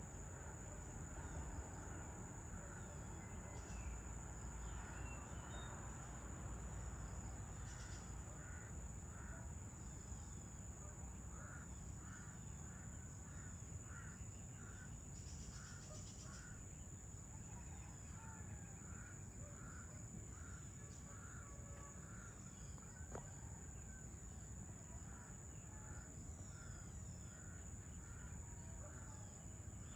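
Faint evening outdoor ambience: a crow cawing in a long run of short, evenly repeated calls, over a steady high-pitched insect drone and a low distant rumble.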